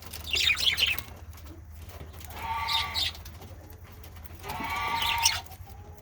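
Male budgerigars chattering: quick high chirps at the start, then two longer scratchy warbling calls, one in the middle and one near the end.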